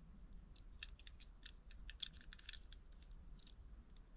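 Faint, irregular clicks and light taps of small die-cast model cars being handled and set down, bunched mostly in the middle of the stretch.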